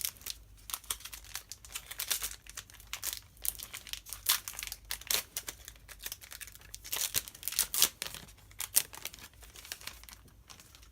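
Foil Pokémon booster pack wrapper being torn open and crinkled in the hands: a busy run of sharp crackles that dies away near the end.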